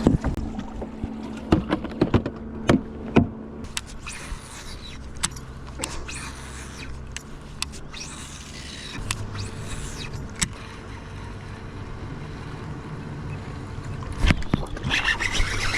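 Knocks and clatter in a small fishing boat during its first few seconds, then a steady low hum that grows stronger about nine seconds in, with some faint rushing sounds between.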